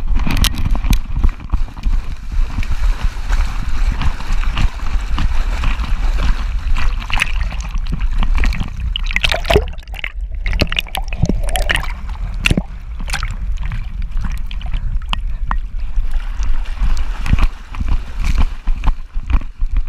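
Sea water sloshing and splashing right against a camera strapped to a swimming Boston Terrier, with a constant low rumble and many short splashes and knocks. The sound briefly dulls just before the tenth second as the camera goes under the surface.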